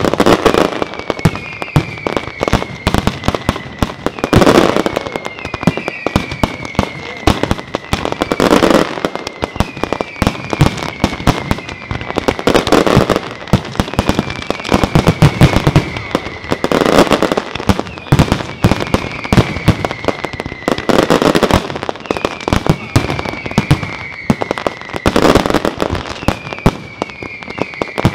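Aerial fireworks going off in a dense, continuous barrage of crackling and bangs. A heavier burst comes about every four seconds, each joined by a falling whistle.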